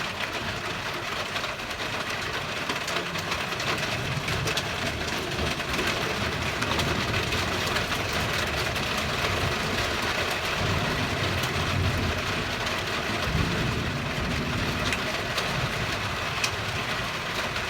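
Steady rain mixed with hail coming down, a continuous hiss with scattered small ticks over a low, uneven rumble.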